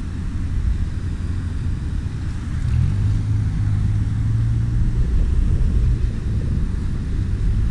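Low rumble of a passing motor vehicle, swelling about three seconds in and easing off after about five seconds.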